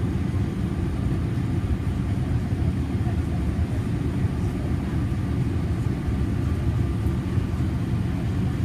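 Steady low rumble of a Boeing 787 Dreamliner in flight heard from inside the cabin: engine and airflow noise on the way in to land.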